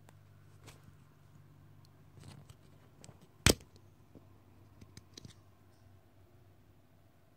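One sharp scissor snip about three and a half seconds in, with a few fainter clicks and rustles of handling before and after, as the bait packet is being cut open.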